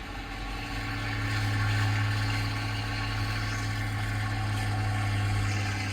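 An engine running at a steady speed with a low hum, getting slightly louder over the first couple of seconds.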